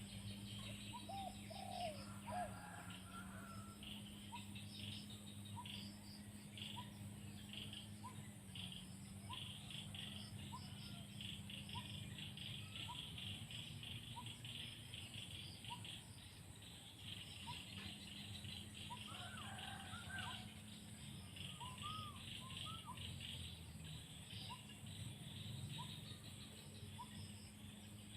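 Birds calling, with a short chirp repeated about once a second and a few warbled calls, two of them around 20 seconds in. Insects buzz in a dense pulsing chorus throughout, over a steady low hum.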